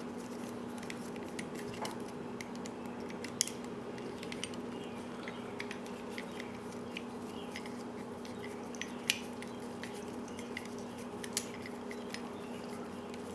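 Scattered sharp metallic clicks and taps from a hex driver working at the set screws in a padlock body, the two loudest about three and a half and nine seconds in, over a steady low hum.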